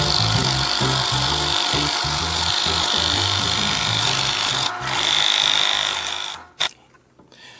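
Drill press boring into a glued-up wooden block with a large multi-spur bit, a rough, uneven cutting noise with the motor running. The noise stops a little after six seconds in, followed by a single click.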